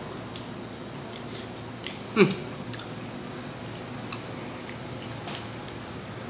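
Chopsticks and a spoon clicking and scraping in a noodle bowl during a meal, with one short, loud mouth sound about two seconds in that drops quickly in pitch.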